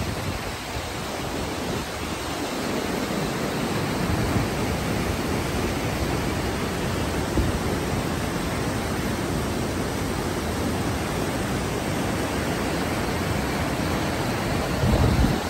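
Whitewater rapids of the Teesta River rushing steadily over boulders, a constant roar of water. A brief low rumble rises just before the end.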